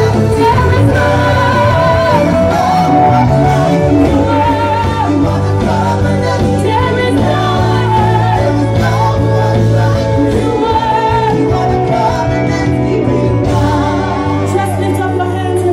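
Live gospel song: a woman's lead vocal with backing singers, amplified through the sound system over a band with held bass notes.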